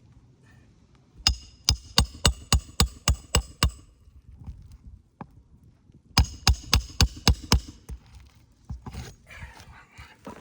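Hand hammer driving a roofing nail into a shingle: two quick runs of strikes about four a second, first about nine, then about six, each strike with a short metallic ring.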